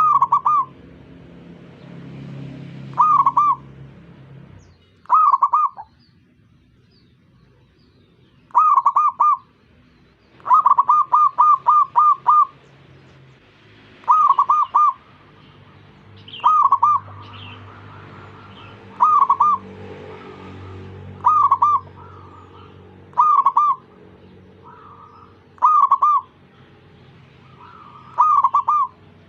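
Zebra doves (perkutut) cooing: short phrases of three or four rolling coos repeated every two to three seconds, with one longer run of about seven coos around ten seconds in. Fainter coos from other doves come in between the main phrases.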